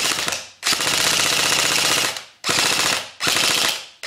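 Tokyo Marui M4A1 electric airsoft rifle firing on full auto in four bursts, a long burst of about a second and a half in the middle, with BBs striking the target.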